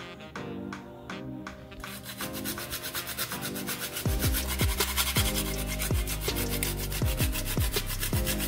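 Whole nutmeg being grated on a fine handheld rasp grater: rapid, even scraping strokes starting about two seconds in, over background music with a beat and deep bass notes.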